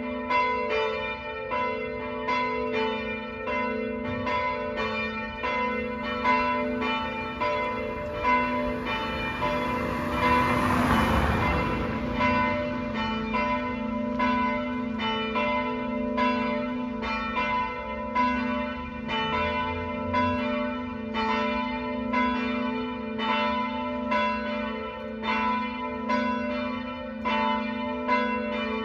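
Church bells ringing in full plenum, all swinging together, their strikes overlapping in a steady, uneven cascade over a sustained ringing hum. A brief rush of noise swells and fades near the middle.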